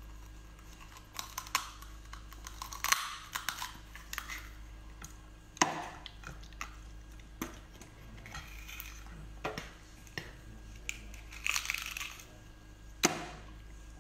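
Sea urchin shell and spines crunching and cracking as the urchin is bitten and pried apart by hand: a series of sharp, short cracks every second or two.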